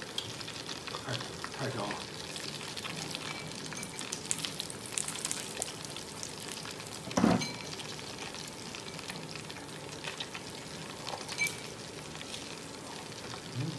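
Pork belly slices sizzling and crackling steadily on a round grill pan, with a brief vocal sound about seven seconds in.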